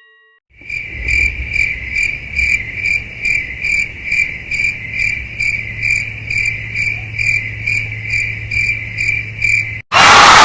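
Cricket chirping sound effect: a high chirp pulsing about three times a second. It cuts off suddenly near the end, where a loud hiss like static begins.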